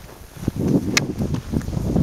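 Wind buffeting the camera's microphone in an irregular, gusting low rumble that swells about half a second in. A single sharp click comes about a second in.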